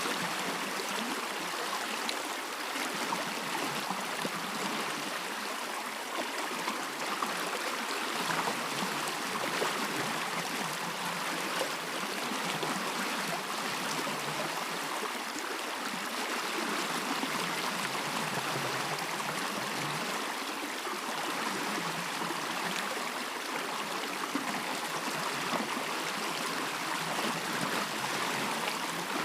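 A stream running steadily, an even rush of flowing water with trickling over it.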